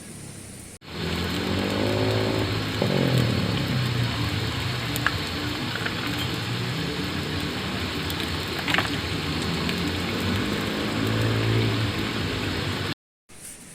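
A motor vehicle engine running, its pitch rising and falling as it revs, over a steady rushing noise. It cuts in suddenly about a second in and cuts off just before the end.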